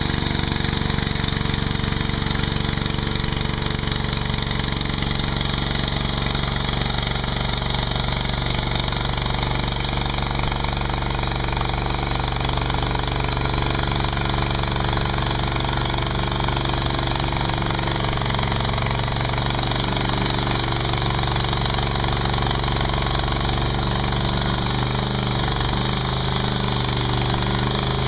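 Mini skid steer's engine running steadily, its pitch shifting slightly near the end.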